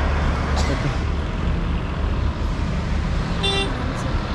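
Street traffic with a steady low rumble. A short, high-pitched tone sounds about three and a half seconds in.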